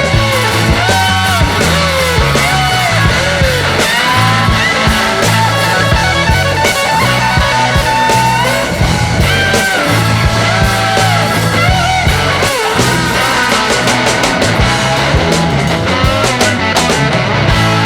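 Rock music with distorted electric guitar, bass and drums playing continuously, with a bending lead guitar or vocal line.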